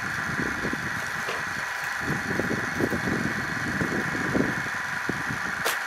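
Firewood saw-splitter machine running steadily with a constant whine, while pieces of firewood knock and clatter as they are handled, and one sharp click near the end.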